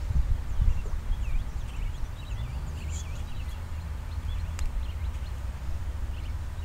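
Small birds chirping in short repeated calls over a steady low rumble, with a single sharp click about four and a half seconds in.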